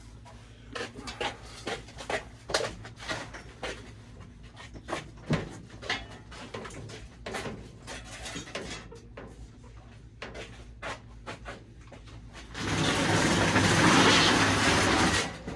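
Scattered knocks and clatters of objects being handled and moved. About thirteen seconds in, a loud, steady rushing noise starts, lasts about two and a half seconds and cuts off.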